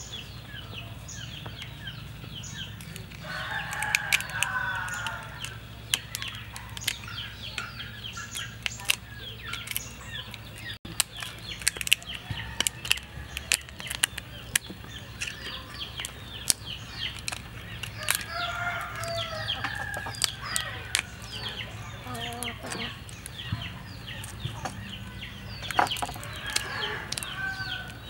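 Chickens clucking and a rooster crowing, over many sharp clicks and crackles as cooked river prawn shells are cracked and peeled by hand.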